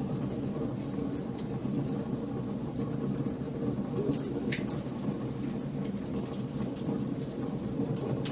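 Wood fire crackling in a fireplace: scattered sharp snaps and pops over a steady low rushing of the burning logs.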